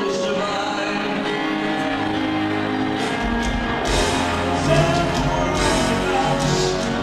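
Live pop-rock concert music recorded from the audience in a large arena: a male voice singing with piano and band. About three seconds in, heavy low bass and sharp cymbal-like strikes come in and the music grows fuller and louder.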